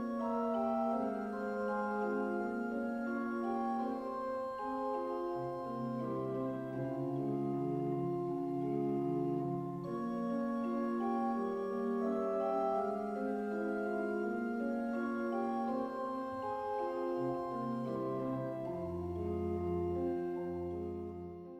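Organ music playing slow, sustained chords, with a deep bass note coming in near the end before it fades out.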